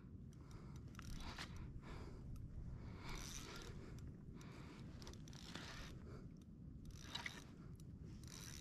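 Spinning reel being cranked, its gears whirring faintly in a run of uneven strokes as line is wound in on a hooked tuna that is not pulling against the drag, over a low rumble of wind and water.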